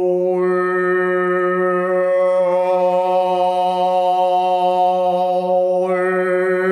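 A man's throat-singing drone: one long held low note whose upper overtones shift, brightening about half a second in and again near the end, echoing off the walls of a concrete bunker.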